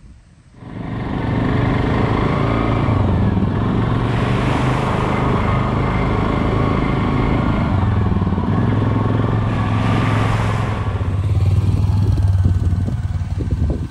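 ATV engine running while riding along a dirt trail, with rumble from the trail underneath. It comes in suddenly about half a second in and holds a steady level throughout.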